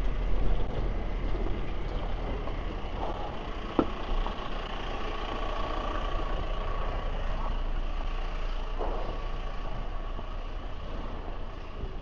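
Busy city street traffic, with a large vehicle's engine running nearby as a steady low rumble. A sharp knock comes about four seconds in.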